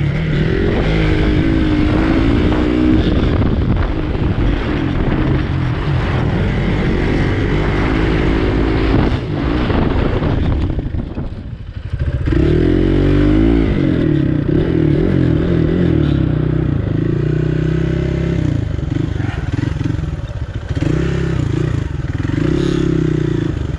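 Dirt bike engine running on a dirt track, its pitch rising and falling as the throttle is opened and closed. About eleven seconds in it drops back briefly before pulling again.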